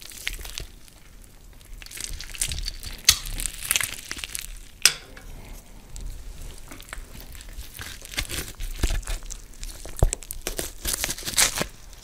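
Crunching and crinkling sound effect, an irregular run of crackles with sharp snaps about three seconds in, near five seconds and about ten seconds in.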